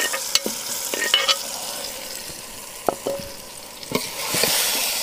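Tomatoes, green chillies and ginger-garlic paste sizzling in ghee in a steel pot as raw chicken pieces are spooned in, with several sharp clinks of a metal spoon against the pot. The sizzle grows louder near the end.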